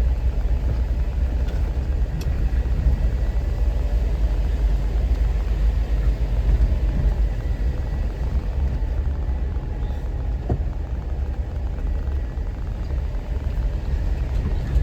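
Off-road vehicle driving down a mountain road: a steady low rumble of engine and road noise, with a faint thin tone and a single small click partway through.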